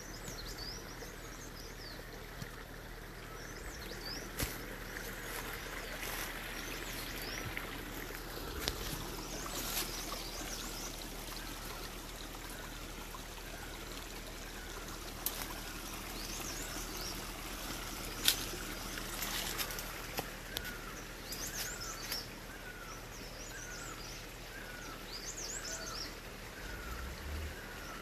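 Forest ambience: a steady background hiss with birds calling. Through the second half one bird repeats a short falling note about every two-thirds of a second. A few sharp clicks come from handling, the loudest about two-thirds of the way through.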